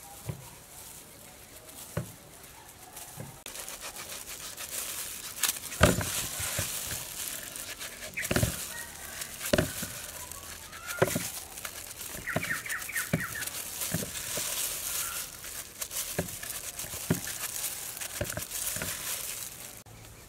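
A knife slicing crisp guava held in the hand, a sharp cut or knock every second or two, over a steady high outdoor hiss. A bird calls briefly a little past the middle.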